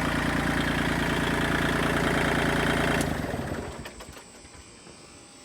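Kubota tractor's diesel engine idling steadily, running again now that its loosened fuel shut-off switch has been turned back on. About three seconds in there is a click and the engine is shut off, its beat slowing and dying away.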